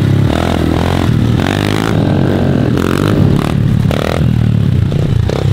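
Small pit bike engines running and revving as the bikes pull away, the pitch rising and falling with the throttle.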